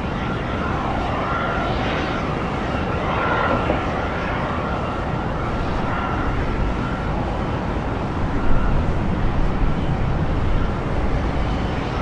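Twin-engine jet airliner landing: a steady engine whine over a low rumble as it touches down and rolls out, the sound swelling about eight and a half seconds in.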